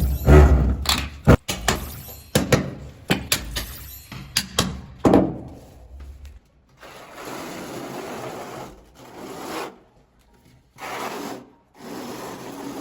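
A quick run of sharp knocks and clicks, then a few scraping, rubbing strokes, each about a second long, with pauses between them.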